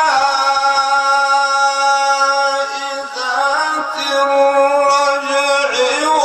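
A man's voice holding a long, drawn-out note in melodic Quran recitation, steady in pitch with slight shifts about three seconds in and again near the end.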